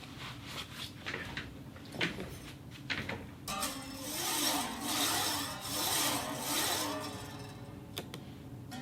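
A small ball rolling around inside a cup: light clicks and taps at first, then from about three and a half seconds a louder swirling ring whose pitch wavers up and down as the ball circles, easing off after about seven seconds.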